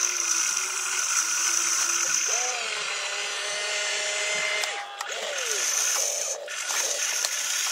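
Radio-controlled excavator's small electric motors and gears whining as it swings and works its boom and bucket, the whine sliding up and down in pitch with each movement over a steady high whine.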